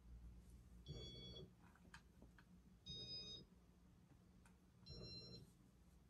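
Three short electronic beeps about two seconds apart, each at a slightly different pitch, from a Casablanca Stealth ceiling fan's control, over a faint steady low hum.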